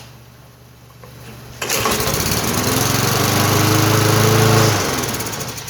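Kohler 149cc single-cylinder lawn mower engine pull-started, catching at once about one and a half seconds in. It runs steadily for about three seconds, then winds down and stops. The stop is the sign that the repaired flywheel brake is now grounding the engine when the bail is released.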